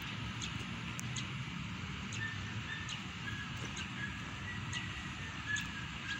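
Outdoor ambience: a steady low rumble with scattered light clicks, and from about two seconds in a run of faint, short, high-pitched notes.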